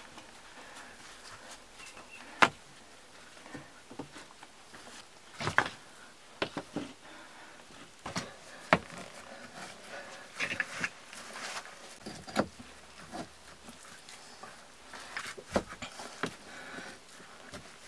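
Wet clay and stones being handled and pressed by gloved hands while building up a clay fireplace over a wire arch: soft slaps and rustling with scattered sharp knocks every few seconds.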